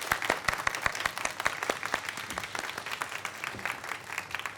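Audience applauding: a dense patter of many hands clapping that begins to thin out near the end.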